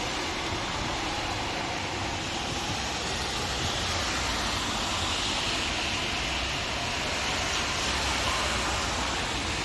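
Steady rain with wind, an even rushing noise with a low rumble underneath that swells a little midway.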